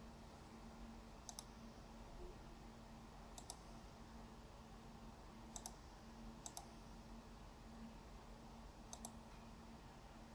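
Computer mouse clicking: five quick double clicks spread a second or two apart, over a faint steady hum in a quiet room.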